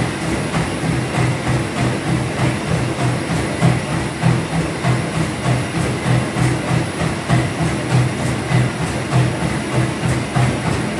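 Running footsteps landing on a motorised treadmill belt in a quick, even rhythm of about three steps a second.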